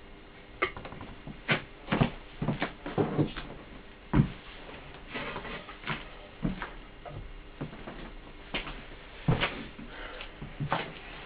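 Irregular wooden knocks and taps from wooden jig parts being handled and set against a loudspeaker chassis on a workbench.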